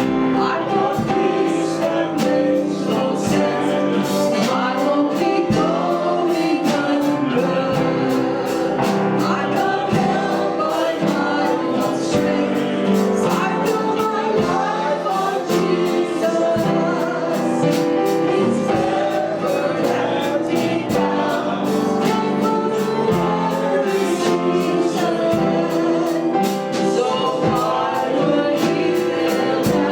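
A congregation singing a worship song with instrumental backing and a steady beat.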